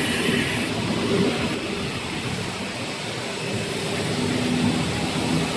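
Computerized electronic panel saw running, its blade sawing through a board panel: a steady machine noise.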